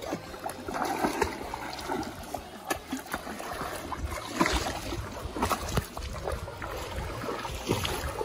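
Pool water splashing and sloshing as swimmers kick and paddle, with irregular sharp splashes.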